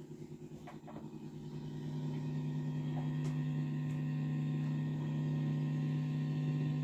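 Low sustained drone with a couple of steady pitched tones, fading in over the first two seconds and then holding level with a slight regular pulsing.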